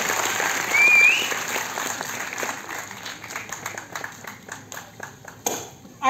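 Theatre audience applauding, the clapping thinning out and dying away to a few scattered claps. There is a brief high rising tone about a second in.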